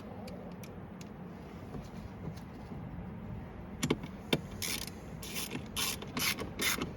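Scattered clicks, then a run of short ratcheting strokes, two or three a second, from a ratchet driving 7 mm screws home.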